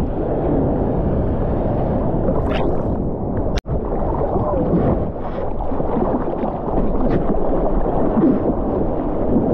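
Seawater rushing and splashing around a GoPro in its waterproof housing as a surfboard moves through the surf, a muffled, steady rush heavy in the low end. The sound cuts out for an instant about a third of the way in.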